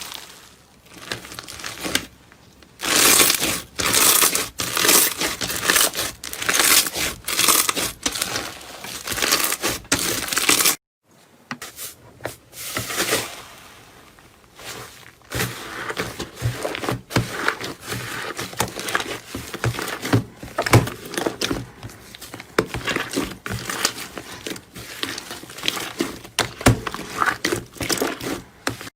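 Slime being squeezed, pressed and stretched by hand, giving a dense run of quick sharp clicks and crackles. The sound stops briefly about eleven seconds in, then goes on.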